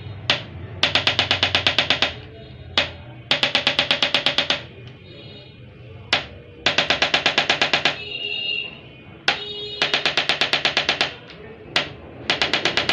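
Electric chiropractic adjusting instrument firing: a single tap, then about half a second later a rapid run of about ten taps a second lasting just over a second. The pattern repeats five times, delivering adjustment thrusts.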